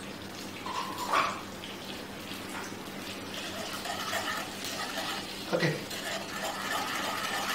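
Heavy cream simmering in a frying pan over a gas flame while it is stirred, a soft steady bubbling with light scraping of the utensil in the pan. A short sharp sound about a second in.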